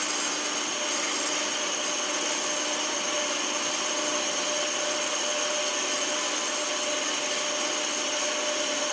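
Band saw running steadily and cutting into a wooden board, a steady whine mixed with the hiss of the blade through the wood as a series of slots is cut to form a notch.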